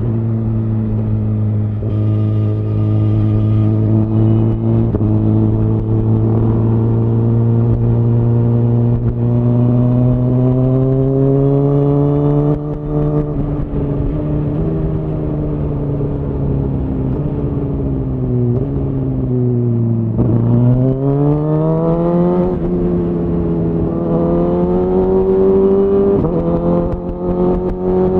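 Suzuki GSX-R1000R inline-four through a Yoshimura R-11 SQ exhaust, running on the road. The engine note climbs slowly, eases off and sinks to a low about two-thirds of the way through, then rises sharply as the bike accelerates and keeps climbing near the end.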